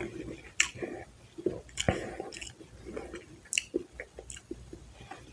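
A person chewing a mouthful of Wendy's fast food, with irregular short mouth clicks and smacks.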